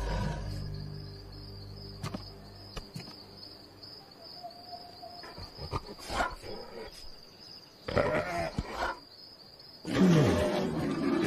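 A cartoon polar bear's wordless vocal noises: short grunts and breathy sounds, then a loud yawn that falls in pitch near the end.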